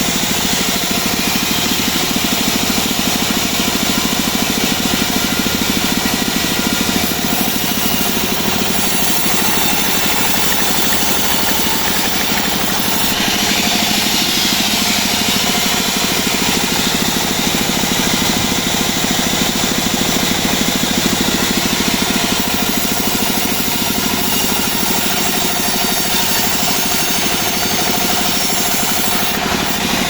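Engine of a homemade portable bandsaw sawmill running steadily under load while its blade saws albasia wood, with a brief brighter, higher hiss about halfway through.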